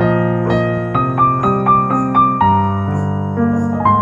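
Background piano music playing a gentle melody of struck notes over held chords.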